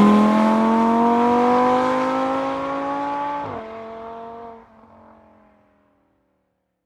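Audi R8 engine accelerating away after a pass-by, its pitch climbing steadily. About three and a half seconds in there is a sudden drop in pitch from an upshift, and then the sound fades out into the distance.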